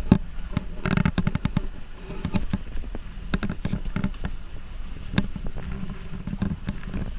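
Swan-shaped pedal boat being pedalled, with many rapid, irregular knocks and clatters from the boat over a steady low rumble.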